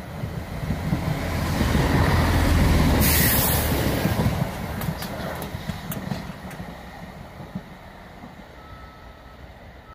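Chiltern Railways diesel multiple unit passing through at speed. Engine and wheel-on-rail noise build as it approaches and peak as it goes by two to four seconds in, with a brief rush of air, then fade as it runs away down the line with a few clicks from the wheels.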